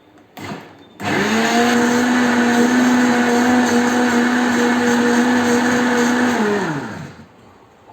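Electric blender mixing liquid cake batter: the motor starts about a second in, runs at a steady pitch, then is switched off and winds down with a falling pitch near the end.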